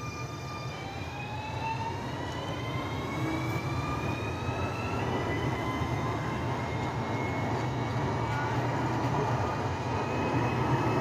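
Alstom Citadis Dualis tram-train pulling away, its traction motors whining in several tones that climb in pitch as it picks up speed, over a low running rumble. The whine steps up about five seconds in, and the sound grows louder throughout.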